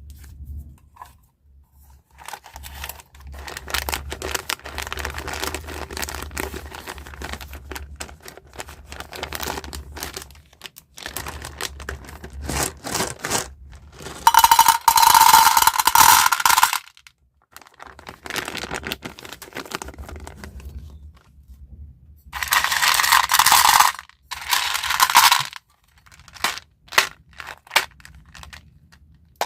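Plastic candy packaging being handled and opened: crinkling and tearing with small clicks, and two louder bursts, one about halfway through and one a few seconds before the end.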